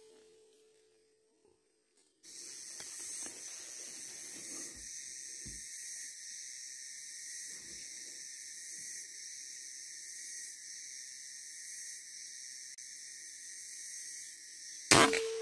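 Steady high insect drone, starting suddenly about two seconds in. Just before the end comes a single sharp air-rifle shot, the loudest sound, with a short ringing tail.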